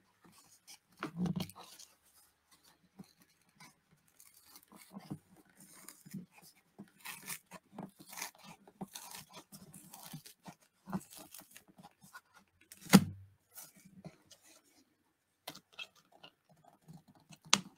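Paper rustling and crinkling with scattered small clicks as the pages of an old book are worked loose from its old staples at the spine, with one sharper knock about 13 seconds in.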